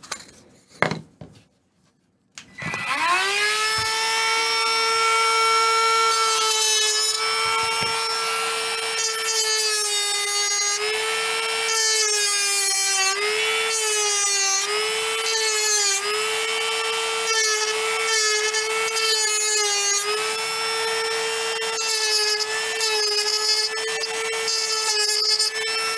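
Handheld rotary tool starting up about two seconds in and spinning with a high, steady whine, its pitch sagging briefly each time the bit is pressed into the work, with a gritty grinding sound over it. A couple of light knocks come just before it starts.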